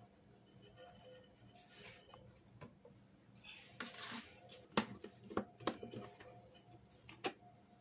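Soft rustling, then a handful of sharp plastic clicks and knocks in the second half as a plastic squeeze bottle of cleaning product is handled over a plastic tub.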